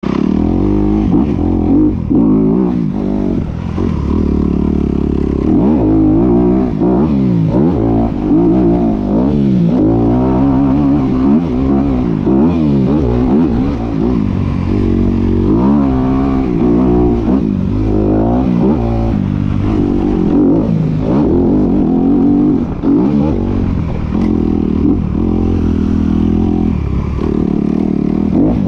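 Dirt bike engine being ridden hard, revving up and falling back over and over with the throttle and gear changes, the pitch rising and dropping every second or so, with some rattle from the bike.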